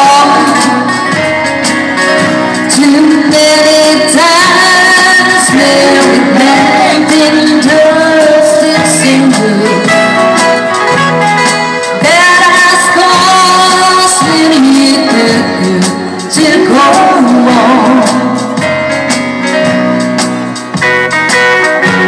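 A woman singing a song live into a microphone over electronic keyboard accompaniment, played through a small amplifier.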